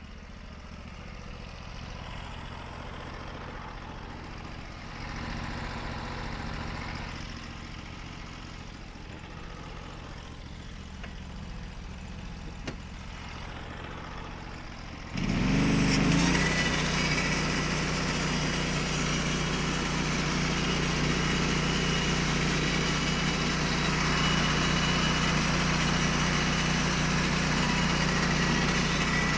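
Small gasoline engine of a portable sawmill idling steadily, then about halfway through throttled up abruptly to a steady high speed, as for starting a cut through a pine log.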